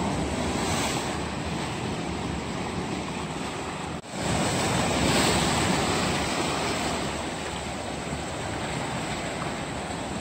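Sea waves breaking and washing over rocks, with wind buffeting the microphone. The sound cuts out for an instant about four seconds in, then a louder wave surges and fades.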